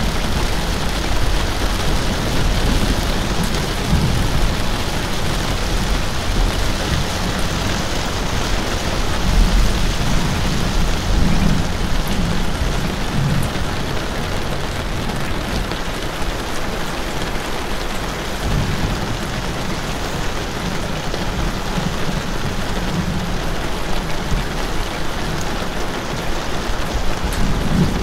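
Steady rain falling: a dense, even hiss, with low rumbling swells every few seconds underneath.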